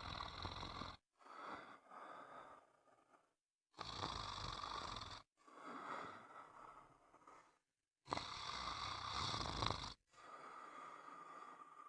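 Snoring in slow, regular cycles: three louder snores about four seconds apart, each followed by a softer, longer breath.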